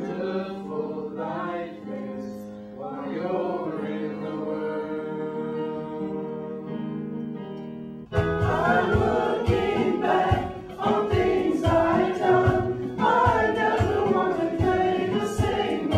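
A group of voices singing long held chords, cutting off abruptly about halfway through into busier music with a steady beat and singing.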